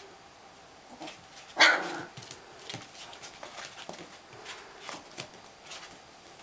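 A Siberian husky puppy gives one short, loud bark about a second and a half in, among light scratches and rustles of puppies scrambling and play-wrestling on a mat.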